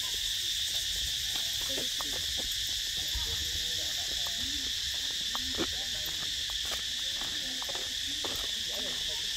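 Steady, shrill chorus of insects in the trees, a continuous high-pitched drone that does not let up.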